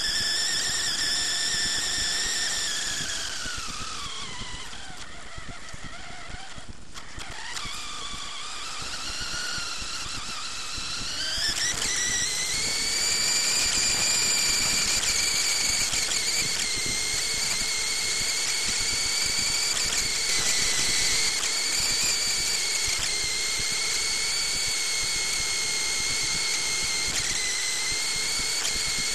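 Onboard sound of an RC off-road buggy driving, dominated by a high-pitched whine from its motor and drivetrain. The pitch drops about four to six seconds in, climbs again around eleven seconds, then holds steady as the buggy runs at speed.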